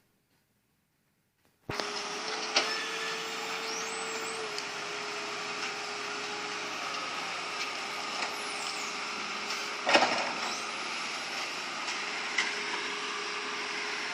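Excavator diesel engine working hard during dredging, with a steady whine and now and then a clank of the bucket or arm; the loudest clank comes about ten seconds in. The machine is underpowered, so its engine sounds rough and strained. The sound cuts in suddenly about two seconds in.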